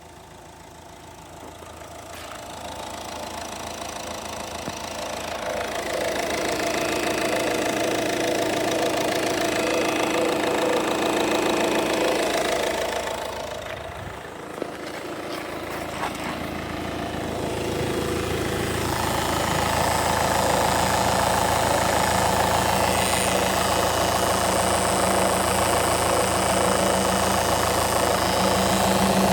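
Peugeot 2008's 1.6 BlueHDi four-cylinder turbodiesel running at idle, with a noise that the owner places at the timing end of the engine. It grows louder over the first few seconds, fades briefly about halfway through, then comes back.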